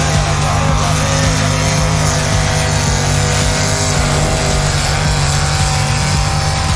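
Modified pulling tractor's engine running hard at a steady pitch under load as it drags a weighted pulling sled along a dirt track.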